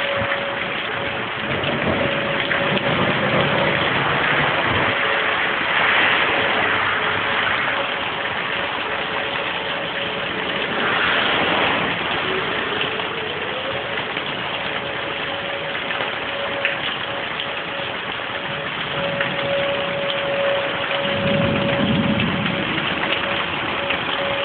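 Heavy rain pouring down steadily, with an outdoor tornado warning siren sounding one steady tone that grows louder and softer as it sweeps around. A low rumble passes twice, near the start and near the end.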